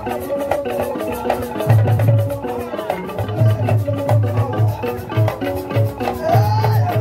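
Traditional African drum-and-dance music: drums beat a quick, steady rhythm under a melody of short pitched notes, with a wavering higher melody line over it.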